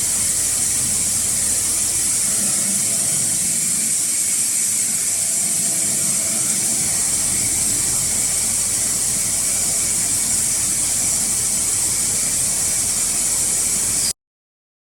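Diamond-wire multi-wire saw running while it cuts sapphire wafers: a steady high-pitched hiss that cuts off suddenly near the end.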